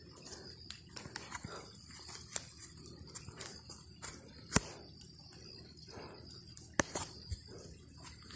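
Footsteps crunching irregularly on dry leaves and twigs, with a few sharper snaps. Behind them runs the steady high-pitched drone of insects.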